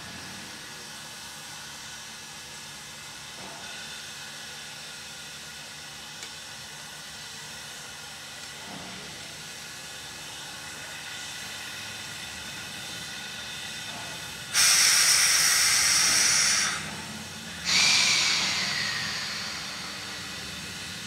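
Steam locomotive 7470 standing with a steady low hiss. Then come two loud bursts of hissing: the first lasts about two seconds and cuts off sharply, and the second follows a second later and fades over a couple of seconds with a falling tone in it.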